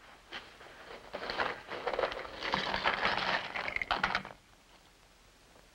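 Rustling and crackling of a small cloth pouch being handled and opened on a desk for about three seconds, with a few sharp clicks near the end as its jewelry comes out.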